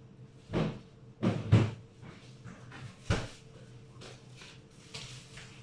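Four sharp knocks of household handling: one about half a second in, two close together just after a second, and the loudest about three seconds in.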